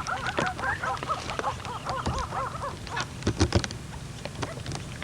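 A quick string of short, arching animal calls for the first two and a half seconds, over scattered clicks and a few low knocks.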